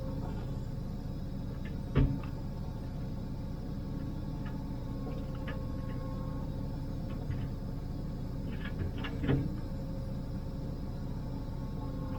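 Liebherr 904 wheeled excavator's diesel engine and hydraulics running steadily, heard inside the operator's cab, with a sharp knock about two seconds in and a few smaller knocks around nine seconds.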